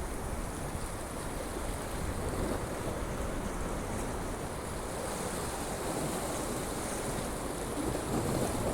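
Sea waves washing steadily against the shore, with wind blowing and rumbling on the microphone.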